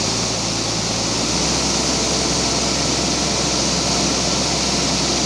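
Combine harvester running steadily through soybeans: an even, loud hiss with a low engine hum beneath, the hum shifting slightly about a second in.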